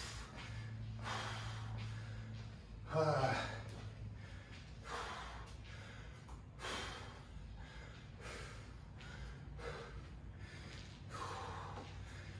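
A man breathing hard after a set of bar and ring muscle ups: heavy gasping breaths through the mouth, one every second or two, with one louder, partly voiced exhale about three seconds in.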